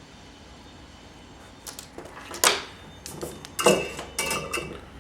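Metal hand tools clinking and clattering on a workbench: a quick run of sharp clicks and knocks after a quiet first second and a half, two of them louder than the rest.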